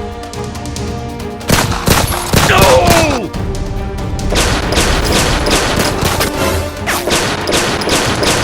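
Rapid gunfire sound effects, many shots in quick succession, over background music; the shooting starts about a second and a half in.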